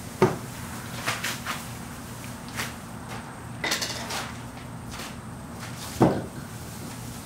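Knocks and clicks of objects being handled and set down on a worktable, including a small metal hand torch. The two loudest knocks come about a quarter second in and about six seconds in, over a low steady hum.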